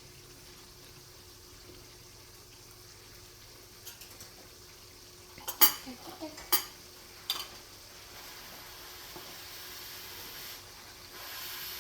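Cutlery clinking against a dish a handful of times, in a cluster about four to seven seconds in, over a faint hiss that grows a little louder near the end.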